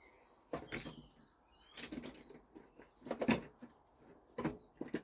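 Clicks, taps and scrapes of small tools and plastic chainsaw parts being handled, in four short bursts about a second apart.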